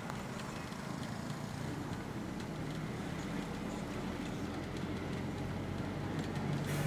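Road traffic heard from a moving vehicle: a steady low engine rumble under road and tyre noise, with a brief rush of noise near the end.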